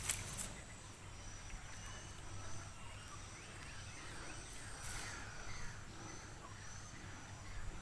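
Faint insects chirping around a rice field: a short high chirp repeated about once or twice a second over a steady low hum, with a couple of soft clicks.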